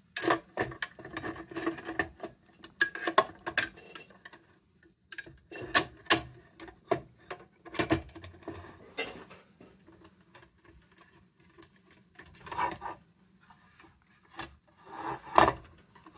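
Metal parts of an old tin kerosene lantern being handled and fitted together by hand: many light clicks and taps with scraping of metal on metal, in bursts with short pauses.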